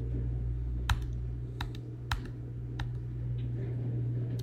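Computer keyboard keys tapped, four sharp clicks spaced about half a second apart in the first three seconds, over a steady low hum.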